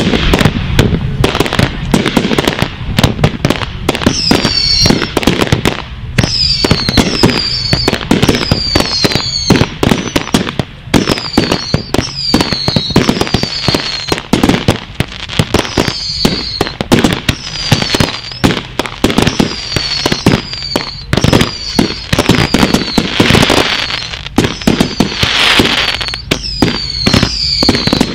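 Firework cakes firing a rapid barrage of sharp bangs and cracks, with a falling whistle about once a second from a few seconds in. A stretch of hiss comes near the end.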